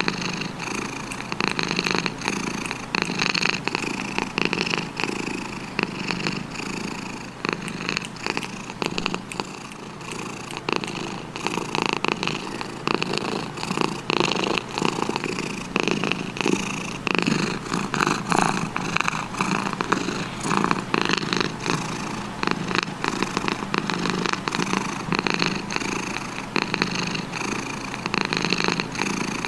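Domestic cat purring continuously, a dense, steady run of rapid pulses.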